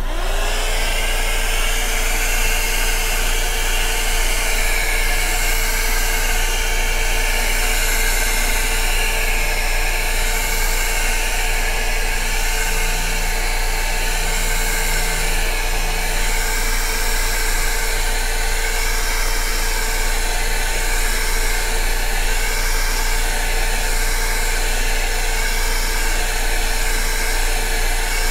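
Handheld hot-air blower switched on and running steadily, its motor whine rising to a fixed pitch within the first half second over a steady rush of air. It is blowing heat over wet poured acrylic paint to raise cells.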